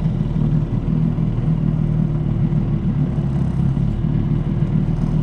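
1971 Evinrude Sportster 25 hp outboard, a two-cylinder two-stroke on OMC's 22 cubic inch powerhead, running steadily under way with no change in pitch.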